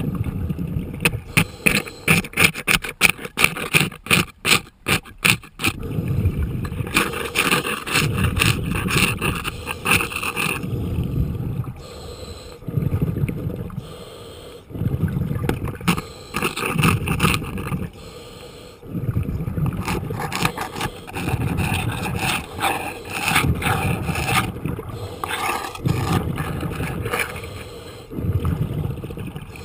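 Hand scraper scraping compacted barnacle growth off a boat's keel underwater, with a quick run of short strokes in the first few seconds and then longer scraping passes with short pauses between them.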